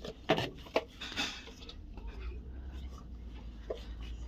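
Light clicks and knocks of stiff plastic flowerpots being handled and picked up, with a low steady rumble underneath from about halfway.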